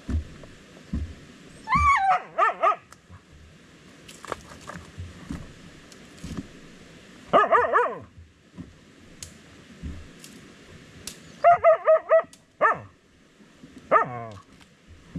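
Hunting dog barking and yelping in short bursts: one call about two seconds in, a run about halfway through, and a fast string of barks near the end, excited at quarry holed up in a burrow. Soft dull knocks in the first couple of seconds.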